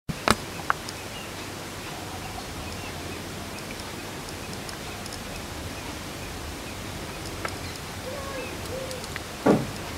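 Steady outdoor hiss with faint bird chirps and short calls, broken by a couple of sharp clicks just after the start and a short thump near the end.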